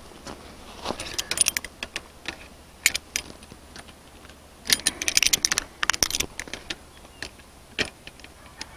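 Steel fence brace wire and hand pliers clinking and rattling as the wire is pulled tight by hand. The sharp metallic clicks come in clusters, thickest about five to six seconds in.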